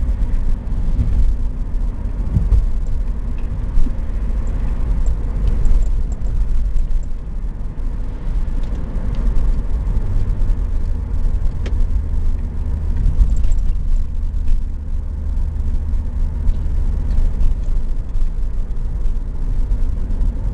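Classic car driving along a road, heard from inside the cabin: a steady, loud low rumble of engine and road noise.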